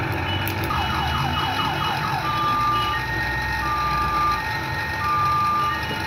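Electronic alarm sounding over a steady low rumble: a fast run of falling chirps, about five a second, then repeated steady beeps switching between two pitches.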